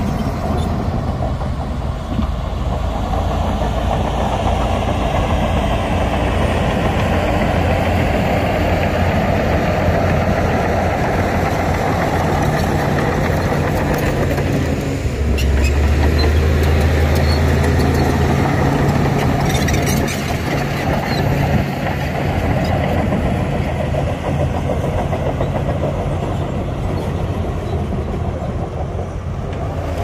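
Heavy diesel engines of earthmoving machines running steadily. A deeper engine tone swells for a few seconds around the middle.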